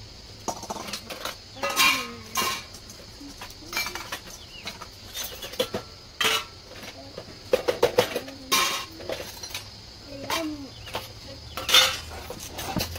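Stainless steel plates, bowls and tumblers clinking and clattering against each other as they are handled for washing: repeated sharp metallic clinks with a brief ring, the loudest about two seconds in, midway, and near the end.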